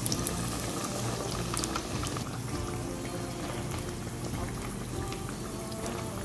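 Batter-coated potato slices (jumbo aloo pakoras) sizzling and crackling as they deep-fry in hot oil, with soft background music underneath.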